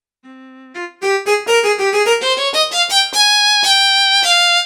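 Roland E-A7 arranger keyboard's violin tone playing a melody: two soft notes, then from about a second in a quick rising run of notes that settles into longer held notes.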